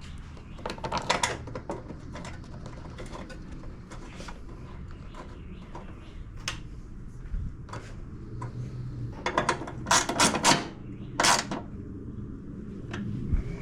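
Irregular metallic clicks, taps and clatter of hand tools, screws and engine parts being handled and fitted, with a quick run of clicks about a second in and a louder cluster of knocks near the end.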